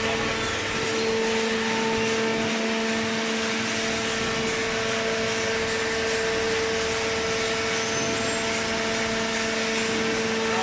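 Hydraulic power unit of a vertical cardboard baler running, a steady machine hum with two strong even tones over a constant whirring noise.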